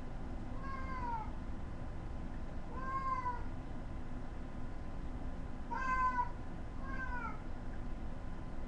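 A domestic cat meowing four times, short calls that dip in pitch at the end, the third, about six seconds in, the loudest. A steady low hum runs underneath.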